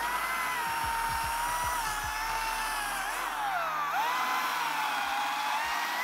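Cordless Makita top-handle chainsaw spinning up and cutting a face notch into a pine trunk: a steady electric-motor whine that dips in pitch twice under load about three and four seconds in, then recovers.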